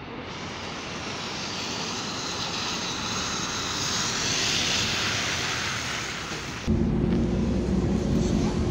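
MAZ 203 city bus approaching and pulling in on a wet road: a steady hiss of tyres on water with engine noise, growing louder towards the middle. About seven seconds in it cuts to a steady low engine hum heard inside the bus cabin.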